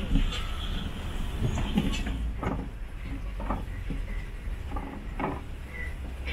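Safari truck driving over a rough dirt track: a steady low engine rumble with scattered knocks and rattles from the vehicle as it bumps along.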